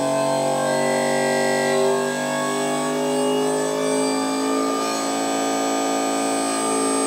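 Home-built hydraulic power unit running on its first run with fluid: a VFD-driven electric motor turning the hydraulic pump, a steady machine whine made of several tones that drift slightly up and down in pitch.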